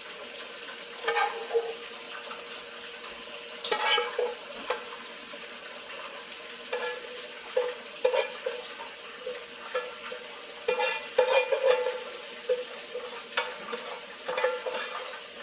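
Meat sizzling in a frying pan, a steady hiss, with a utensil scraping and clinking against the pan in bouts, the metal pan ringing briefly at each knock.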